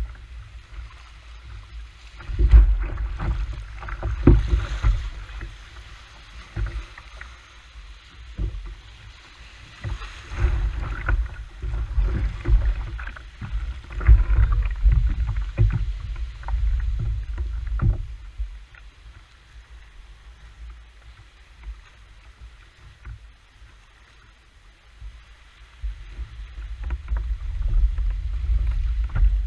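A hooked fish thrashing at the surface beside a kayak: irregular splashing and knocks against the hull, over low rumbling noise on the microphone. The splashing comes in busy bursts, dies down for several seconds, then picks up again near the end.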